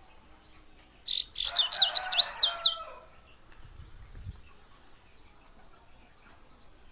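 Double-collared seedeater (coleiro) singing one loud phrase of rapid, sweeping high notes, starting about a second in and lasting about two seconds.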